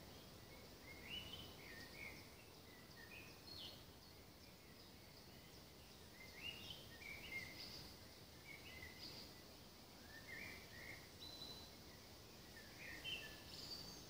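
Faint woodland birdsong: a small songbird sings about four short phrases of quick, high chirping notes, a few seconds apart, over a low steady hiss.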